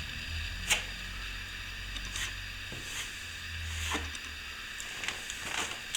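A few scattered light clicks and knocks over a low steady hum, the loudest about a second in.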